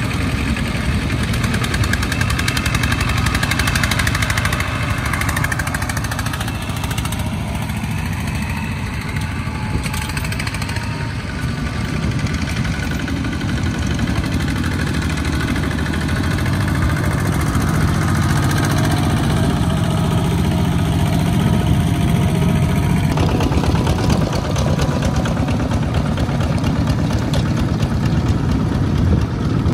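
Single-cylinder diesel engines of two-wheel walking tractors running steadily under load as they pull loaded trailers through deep mud, with a fast, even firing beat.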